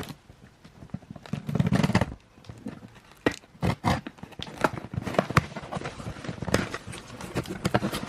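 A delivery parcel being opened by hand: a longer ripping noise about a second and a half in, then a run of sharp crinkles, rustles and knocks of the packaging.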